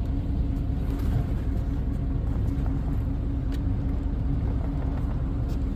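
Steady low mechanical rumble with a constant hum, with a few faint clicks and taps as a door trim panel is pried at.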